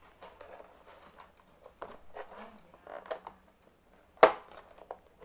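Light taps, clicks and rustles of things being handled on a table, with one sharp clack about four seconds in.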